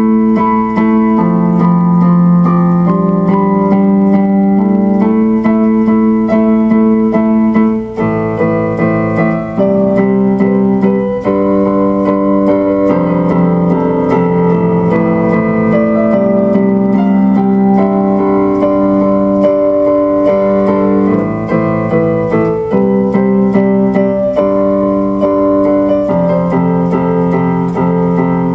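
Background music: electric piano or keyboard playing sustained chords that change every second or two.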